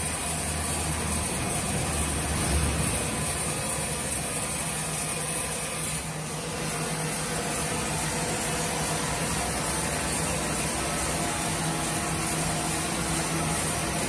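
Electric-powered multi-blade sawmill machine running steadily with a continuous mechanical hum and noise.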